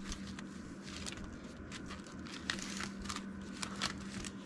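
Paper dollar bills and a clear plastic binder envelope rustling and crinkling as cash is handled: a scatter of short crackles over a steady low hum.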